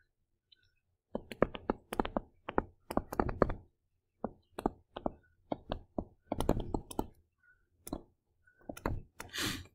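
Stylus tapping and scratching on a tablet surface while handwriting: quick, irregular clicks in short clusters with brief pauses between words.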